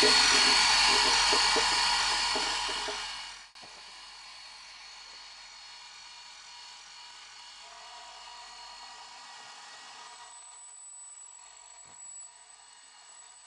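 Milling machine spindle, used as a drill press, running with a half-inch drill bit in a 1/4-inch aluminum plate, with a steady whine. A loud rushing noise over it for the first three and a half seconds cuts off suddenly, and the machine runs on quieter. A high thin tone joins near the end.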